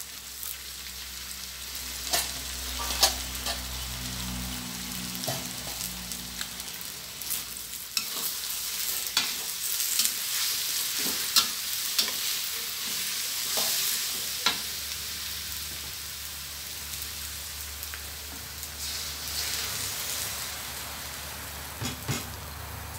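Cabbage, tomato and carrot sizzling as they are stir-fried with egg and pork in a stainless steel wok, with a metal ladle clicking and scraping against the wok at irregular moments.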